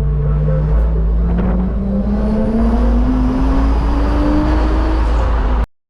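Car engine accelerating under load, its pitch rising smoothly and steadily over about five seconds over a heavy low rumble, cut off abruptly near the end.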